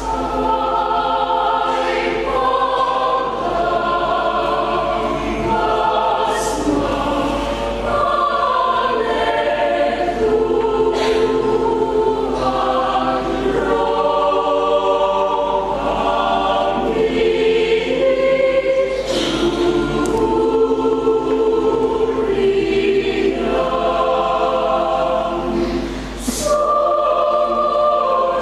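Mixed church choir singing a hymn in several parts, with long held chords that change every second or so and a short breath near the end.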